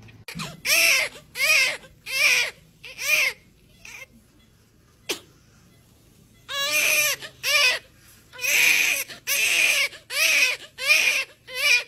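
Newborn baby crying in short wails, one after another. The crying breaks off for about three seconds midway, where there is a single sharp click, then starts again in quick succession.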